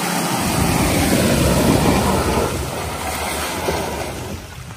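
Toyota Fortuner SUV's engine working hard as it drives through deep mud, with the noise of the tyres in the muck. The sound fades away near the end.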